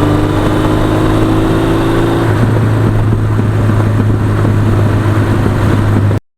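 A 1982 Suzuki GS1100E's air-cooled inline-four engine running at steady revs, loud and even throughout; a higher tone in the sound drops away about two seconds in.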